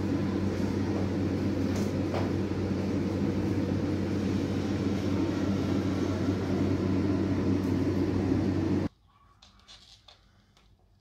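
Steady low mechanical hum that cuts off suddenly about nine seconds in, leaving only a few faint ticks.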